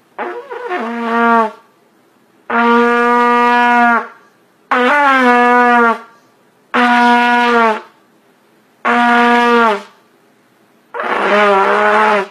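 A toddler blowing a trumpet: six separate held notes of about a second each, all on the same pitch near concert B-flat, several starting with a short scoop up into the note and the last one wavering.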